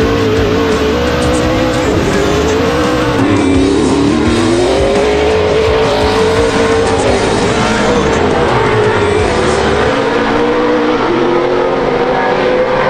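Pro 4 short-course off-road race truck's engine running hard at racing speed, its pitch rising and falling as the throttle is worked.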